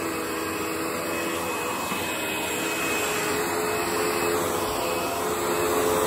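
Panasonic MC-V5005 bagged upright vacuum running steadily as it is pushed over a hard tile floor: a steady motor whine over a rush of air, with its wooden brushroll spinning against the tiles.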